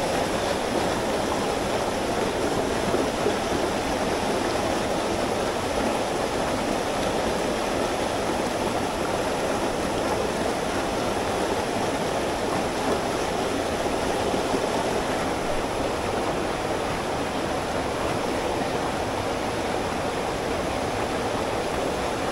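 Steady, even rushing of a mountain headwater stream, the water running high after heavy rain.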